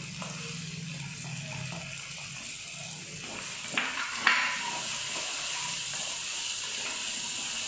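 Chopped onions sizzling in hot oil in a stainless steel kadhai as a wooden spatula stirs them. The spatula knocks twice on the pan about four seconds in, and the sizzle then grows louder.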